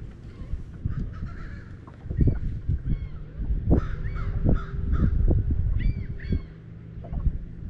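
Birds calling repeatedly in short caw-like calls, often two or three in quick succession, over a loud low rumble with thumps.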